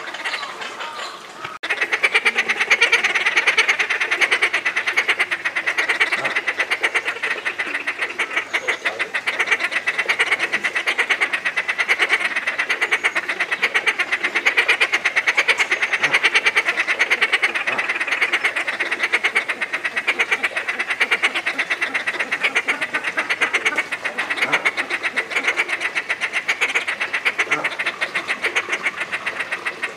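Several Inca terns calling without pause: a dense, rapid chattering, loud and continuous, with a brief dip about a second and a half in.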